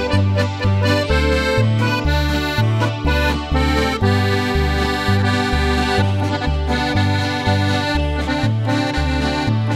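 Background polka-style music on accordion over a steady oom-pah bass that alternates between two notes about twice a second.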